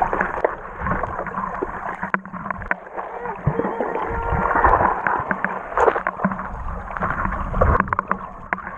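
Muffled water sound heard through a camera held underwater: gurgling and sloshing with scattered clicks and knocks.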